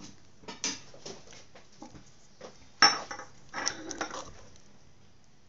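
Metal spoon knocking and scraping against the pot while stirring thick apricot jam, a few scattered clinks with one sharp knock about three seconds in.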